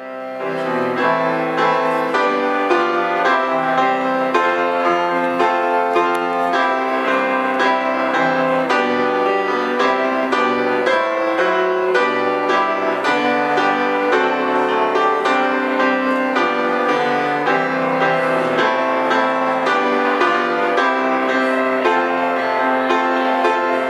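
Instrumental piano music, a steady stream of notes at an even level.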